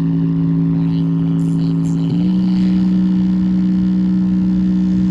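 Instrumental passage of a song played through a GRASEP D-G123 Bluetooth speaker: sustained low synth notes held steady, stepping up to a new pitch about two seconds in.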